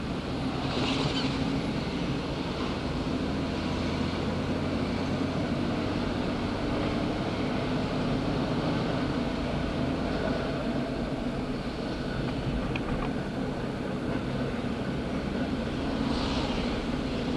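Steady road noise inside a moving car: engine hum and tyres on pavement, with a brief hiss about a second in and again near the end.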